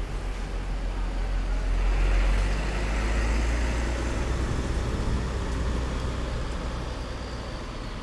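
Large intercity coach bus driving slowly past with a low engine rumble, loudest about two seconds in, then fading as it moves away.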